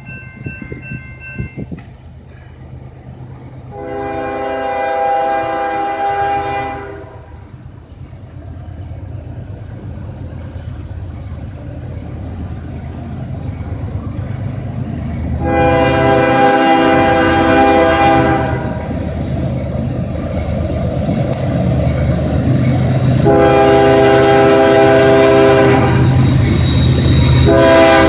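A CSX freight train's diesel locomotive approaches with its engine rumble growing steadily louder. It sounds its air horn chord in three long blasts, about 3 seconds each, and a fourth blast starts near the end.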